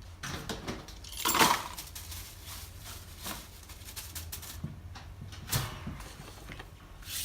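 Small parts of a crushed handheld radio microphone being handled and set down: scattered clicks and light rattles, with a louder scraping noise about a second and a half in.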